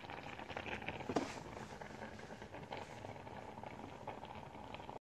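Rustling and handling noise on a phone's microphone, with a few sharp knocks, the loudest about a second in. The sound cuts off suddenly near the end.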